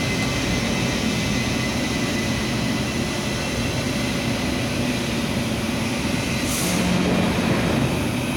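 Steady running noise of workshop machinery, with faint steady whining tones and a brief high hiss about six and a half seconds in.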